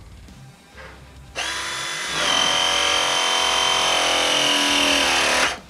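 Ridgid ProPress battery press tool running a crimp cycle on a copper fitting. Its motor starts about a second and a half in and steps louder. It then runs with a steady whine that sags slightly in pitch and cuts off suddenly near the end, the sign of a finished press.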